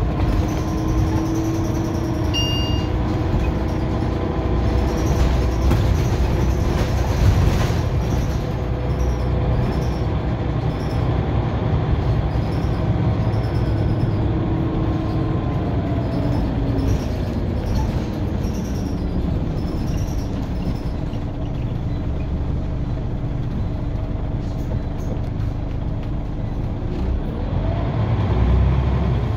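Scania CN94UB OmniCity single-deck bus under way, heard from inside the passenger cabin: a steady engine and drivetrain rumble with road noise and a whine whose pitch drifts up and down as the bus changes speed. A brief high beep sounds about two seconds in.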